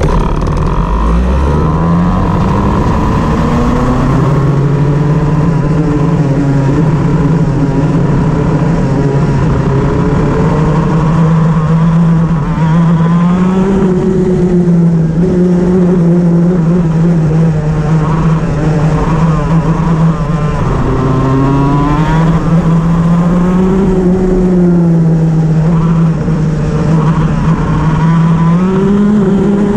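Shifter kart's two-stroke engine running hard under load, its revs climbing about a second in and then rising and falling several times as it pulls and backs off. The uploader says the engine has a misfire.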